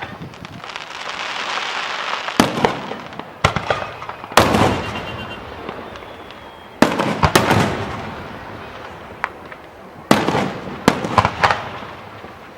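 Aerial fireworks bursting: a hissing crackle in the first couple of seconds, then about five loud bangs one to three seconds apart, each dying away in a rolling echo, some followed by quick crackles.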